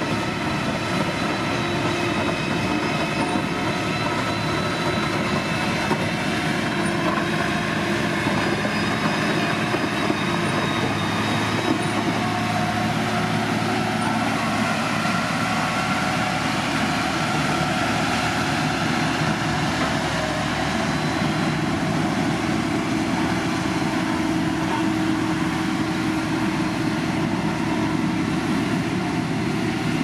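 Heavy diesel engine of a motor grader running steadily under load, with a continuous grinding rumble from the machine working gravel.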